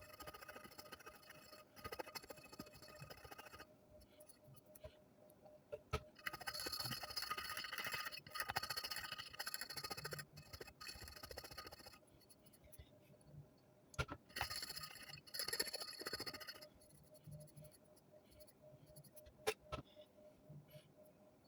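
Fingernail scraping sticky label residue off a Zippo lighter's lid, in several faint stretches of a few seconds each, with a few sharp clicks in between.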